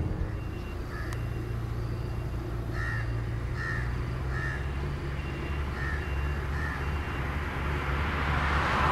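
Steady low rumble of distant engines at the airfield, with a bird calling in short separate notes and a faint beep repeating under a second apart. Near the end, jet engine noise starts to swell.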